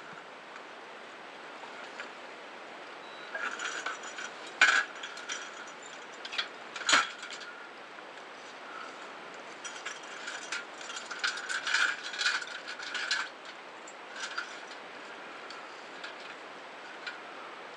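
Irregular clusters of clicks, clanks and rattles from scuba gear being handled, over a steady background hiss.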